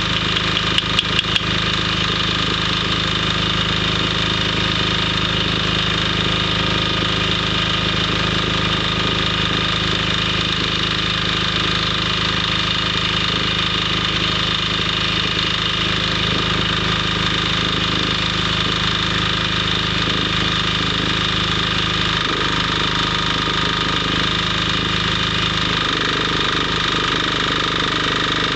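MMA (stick) welding arc burning steadily with a 3.2 mm electrode, over a steady low hum; a few sharp clicks right at the start.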